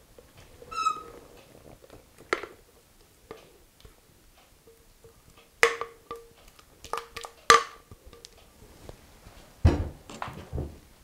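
Kitchen utensil scraping and tapping against a mixing bowl as curd cream is spooned into a cake ring and smoothed: scattered light knocks with a few sharper clacks, a brief squeak about a second in, and duller thumps near the end.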